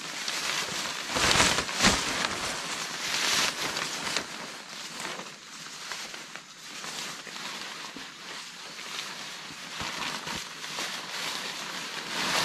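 Blue plastic (polyethylene) tarp crinkling and rustling as it is handled, shaken out and folded, with the loudest rustles about a second and a half in and again near the end.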